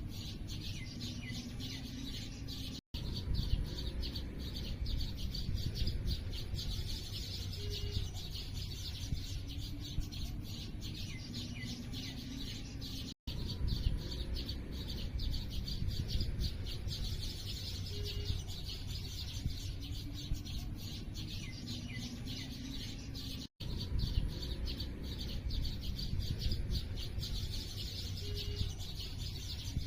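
A dense chorus of small birds chirping rapidly and continuously, with a dove cooing low every few seconds underneath. The sound cuts out for an instant three times, about ten seconds apart.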